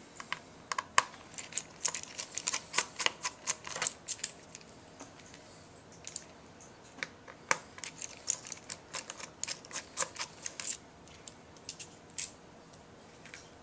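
Quick, irregular runs of small sharp clicks and taps from a screwdriver and small metal screws and parts being handled during laptop disassembly. They come in two bursts of about four seconds each, with a few stray clicks near the end.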